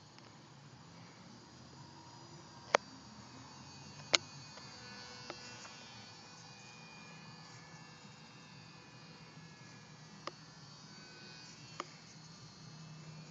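Faint, steady buzz of an RC model plane's motor and propeller flying far off, broken by several sharp clicks, the two loudest a little under three seconds and about four seconds in.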